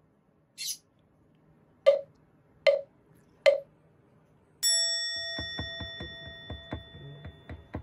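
Edited-in cartoon sound effects: a short soft hiss, then three quick pops about a second apart as dots appear, then a bell-like ding that rings on and fades. Bouncy music with a steady beat starts under the ding.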